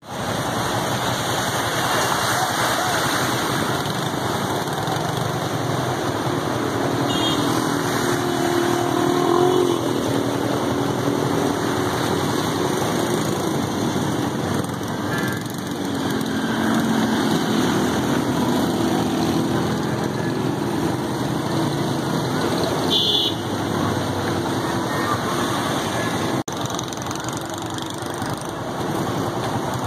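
Steady rush of floodwater flowing through a street, mixed with the engines of vehicles wading through it.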